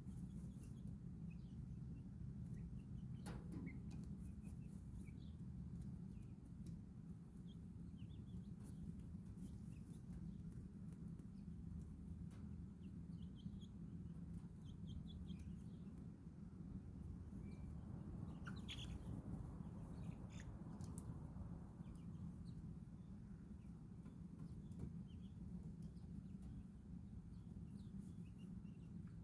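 Faint, scattered high chirps and peeps of baby chicks and backyard birds, with a louder call a few seconds in and again around the middle, over a steady low hum. A single sharp tap comes about two-thirds of the way through.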